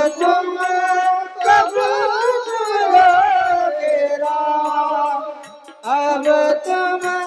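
Devotional bhajan music: a drawn-out, ornamented sung line with no clear words, over steady held accompaniment, with small hand cymbals (taal) ticking in rhythm.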